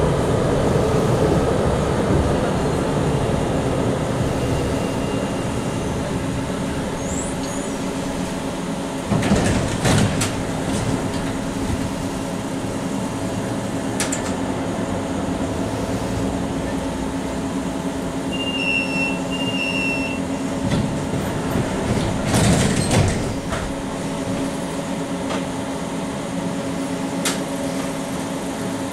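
Inside an NGT8B low-floor articulated tram on the move: a steady running hum with the drive's tones, and the wheels clattering and knocking over the track a few times.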